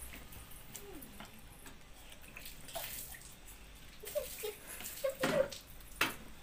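Wet sounds of fingers mashing rice with dal on a steel plate and chewing, with scattered sharp clicks. Short high-pitched sounds come about four and five seconds in, the loudest of them a little after five seconds.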